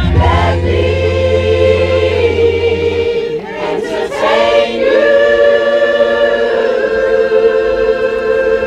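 Mixed choir of men and women singing sustained chords, with a low steady note underneath for the first three seconds. The voices break off briefly about halfway, then hold one long chord.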